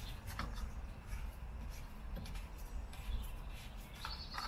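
Gloved hand unscrewing the plastic cap of a BMW 3 Series coolant expansion tank: scattered light clicks and rubbing of plastic, with a cluster of sharper clicks near the end.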